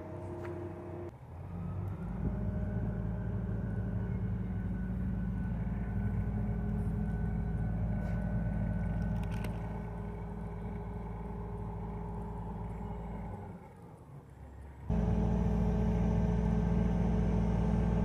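Mobile crane's engine running steadily with a low hum while it holds a load on its hook, easing off briefly about thirteen seconds in and coming back suddenly louder about fifteen seconds in.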